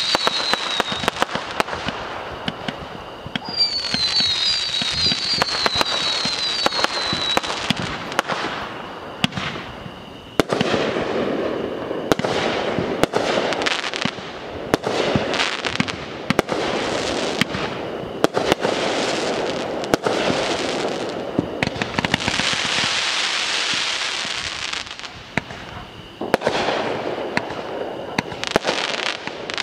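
Aerial fireworks going off in quick succession: a steady string of sharp pops and bangs with crackling. Near the start and again from about 4 to 7 seconds in there are runs of short whistles, each dropping in pitch.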